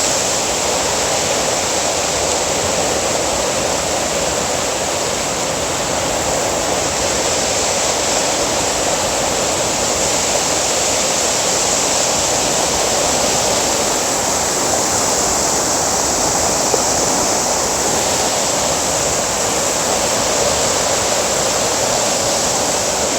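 Waterfalls at the Jaws in Gulf Hagas: water pouring and rushing in a steady, loud, unbroken noise.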